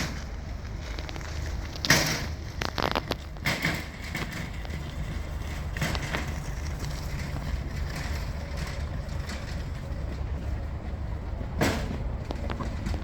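Scrap being handled and loaded: a few sharp knocks and clatters, the loudest about two seconds in, over a steady low rumble.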